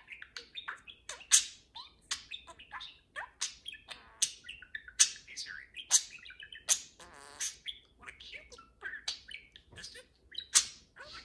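Two pet budgerigars chattering beak to beak: a fast, unbroken stream of chirps, clicks and squeaks, with a short raspy buzz a little past the middle.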